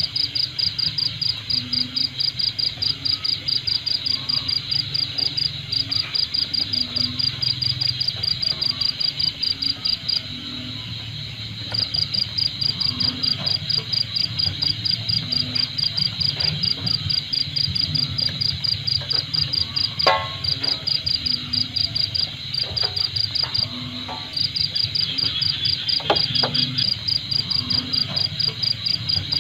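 Insect chirping in a fast, even train of high notes, about three a second, pausing briefly about ten seconds in and again near the end.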